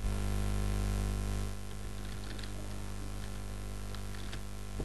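Steady low electrical hum, with a few faint clicks from a computer mouse and keyboard in use.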